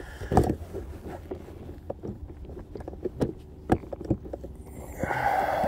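Scattered taps and knocks of hands handling a plastic RC boat hull and its hatch, with a brief rush of noise near the end.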